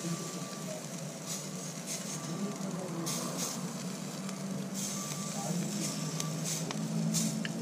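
Butter-basted Balmain bug halves sizzling flesh side down on a charcoal grill, with spitting crackles as the butter drips onto the hot coals. A low steady hum runs underneath.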